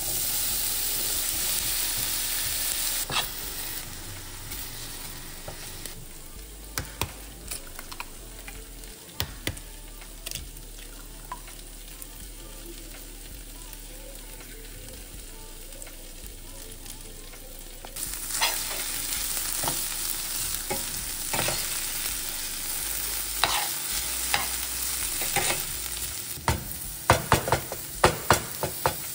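Food frying in oil and butter in a pan, sizzling steadily while a utensil stirs and taps against the pan. The sizzle eases off after a few seconds and swells again later, and a quick run of sharp taps comes near the end.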